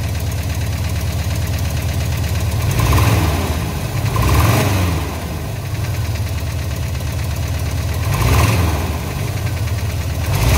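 Porsche 914's air-cooled flat-four engine idling, blipped three times with short revs and a fourth rev starting right at the end. The revs are for a charging check after an alternator replacement.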